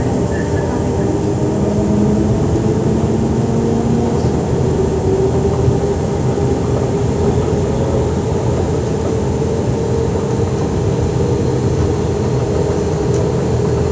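Z2N double-deck electric commuter train standing at the platform, its equipment giving a steady electrical hum and rumble with a few held tones.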